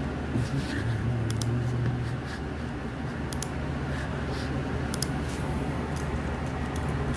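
Scattered light clicks and taps, a few every second or two, over a steady low hum.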